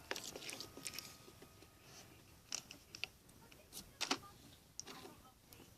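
Homemade hand-soap-and-salt slime being mixed and handled: faint, irregular squishes, scrapes and clicks.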